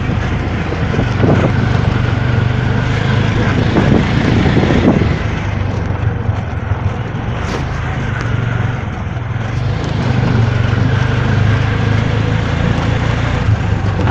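Engine of a small three-wheeler auto-rickshaw running steadily as it drives along a rough dirt road, heard from on board as a constant low hum.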